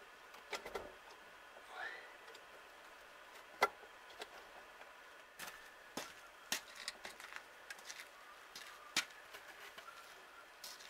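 Scattered light metallic clicks and clinks of GAZ-66 carburetor parts being handled and fitted together on a metal sheet, the loudest about three and a half seconds in.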